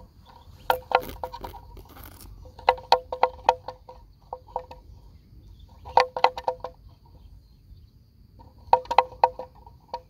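A chicken clucking in short runs of quick clucks, five times, over a steady high insect drone.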